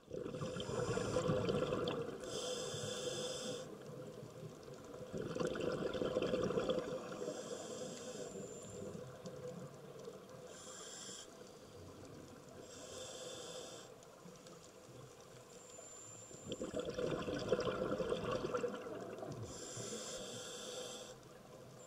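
Scuba diver breathing through a regulator underwater: short hissing inhalations alternate with longer spells of bubbling exhaled air, in a slow repeating cycle.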